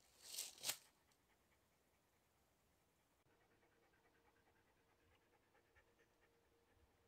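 Two short, breathy puffs from a panting dog in the first second, then near silence with faint ticking.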